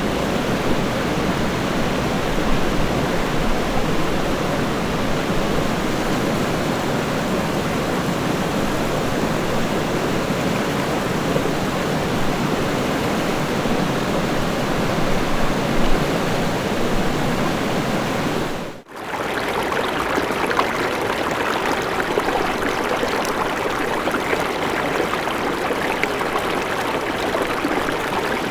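River water flowing in a steady rush. About two-thirds of the way through it drops out for a moment, and a different river recording takes over, thinner in the low end and brighter.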